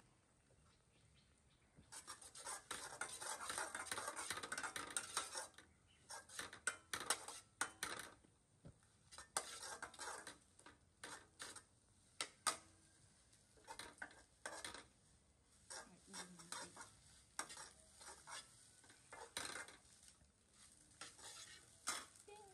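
Metal spatula scraping and clinking against a stainless steel pan as food is stirred. A dense run of scraping starts about two seconds in, followed by many short scrapes and clinks.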